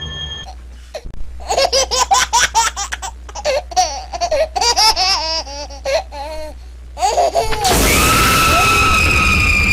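Horror-film sound effect of high-pitched laughter in a run of short, wavering bursts. Near the end it gives way to a loud hiss with a steady high whine over it.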